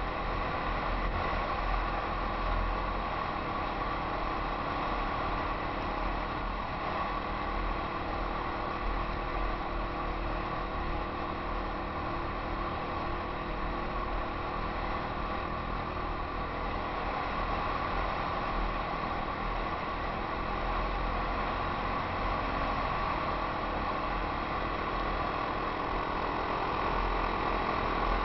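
Yamaha XT 250 single-cylinder four-stroke trail bike engine running steadily at cruising speed, heard from the rider's helmet camera, with wind buffeting the microphone.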